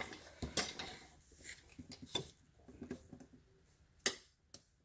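Light clicks and taps of hands handling small plastic parts and screws while fitting a refrigerator's sensor back in place, with one sharper click about four seconds in.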